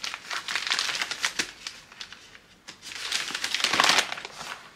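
Kraft-paper mailer packaging crinkling and rustling as it is opened and handled. There are close crackles in the first couple of seconds, a short lull near the middle, then more rustling.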